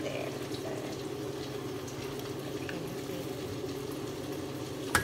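Steady hum of a stove's range hood blower over tilapia frying in hot oil, with one sharp click of metal tongs just before the end.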